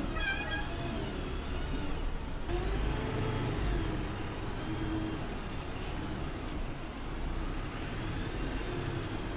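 Diesel engine and cab noise of an Eicher-chassis sleeper coach moving at low speed, heard from the driver's cab: a steady low rumble whose pitch rises and falls slightly as the bus manoeuvres. A brief high squeal comes right at the start.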